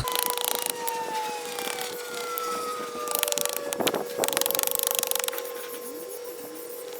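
A hand carving tool cutting into green oak, heard as short bursts of fast, rasping strokes, one about three seconds in and another just after four seconds. A steady tone with a slowly falling whine sounds faintly behind it.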